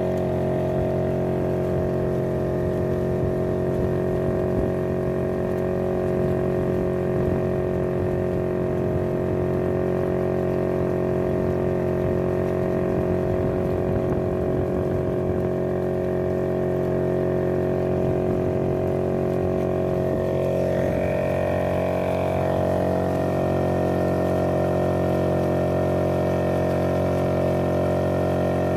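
A small boat engine running steadily under way, with its note rising slightly about two-thirds of the way through, over water rushing and splashing along the hull.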